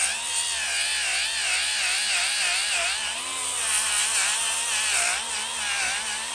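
Milwaukee M18 Fuel cordless grinder spinning a 60-grit hook-and-loop sanding disc against an axe head. A high motor whine wavers up and down in pitch over the steady hiss of abrasive grinding steel.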